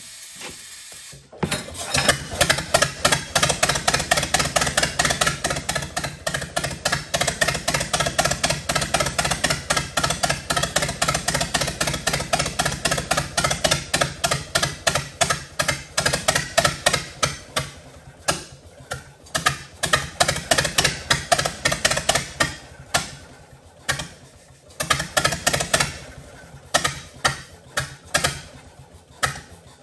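1922 Fordson tractor's four-cylinder engine running fast with a rapid, even firing beat, picking up about a second and a half in. It is running high, close to wide open, on a carburetor that will not hold a proper idle. In the later part it falters, firing unevenly with short gaps, and dies away just before the end.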